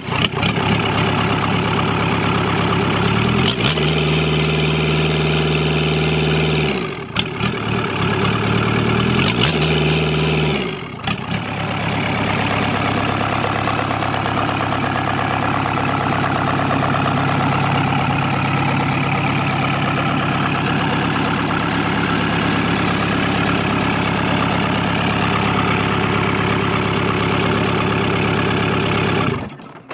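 Kubota V2203 DI four-cylinder diesel engine running on a test stand. It is revved up twice, a few seconds each time, and drops back to a steady idle each time. It then idles evenly until it stops near the end.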